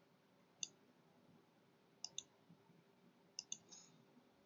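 Near silence with a few faint, sharp clicks, some in quick pairs, and a brief light scrape near the end.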